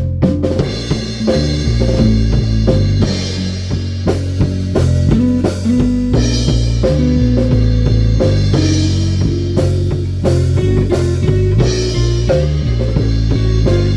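A rock band jamming live: bass and electric guitar over a full drum kit, which comes in with the band about half a second in and keeps a steady beat.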